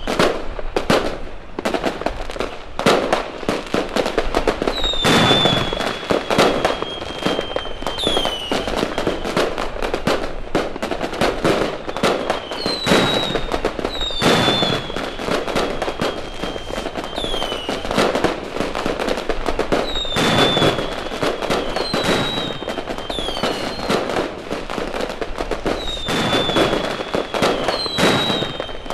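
Fireworks display: a steady run of bangs and crackling bursts. High whistles slide down in pitch several times.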